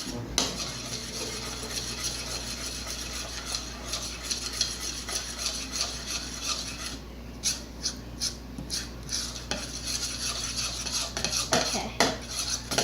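A mixing spoon stirring a thick glue and shaving-cream slime mixture in a bowl, scraping around the bowl with frequent small knocks and clinks.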